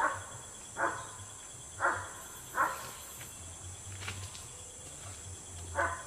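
Short animal calls, five in all: four about once a second in the first three seconds and one near the end. Behind them runs a steady high insect drone.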